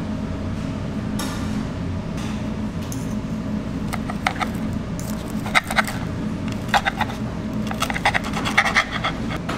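A knife and fork cutting through a pizza, the metal scraping and clicking against the plate from about four seconds in, over a steady low background hum.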